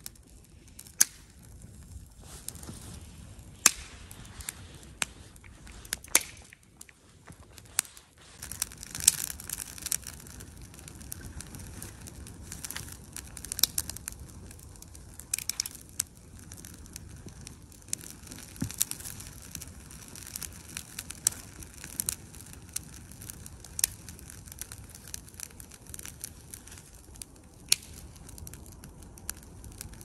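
Small campfire of damp pine crackling, with sharp, irregular pops and snaps of burning and handled sticks.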